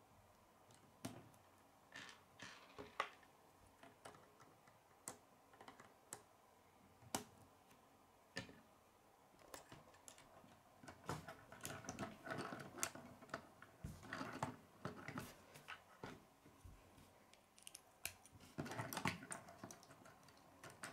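K'nex plastic rods and connectors clicking as they are snapped together and handled on a wooden tabletop. The clicks are faint and scattered at first, then come in busier clusters of clicking and clatter in the second half.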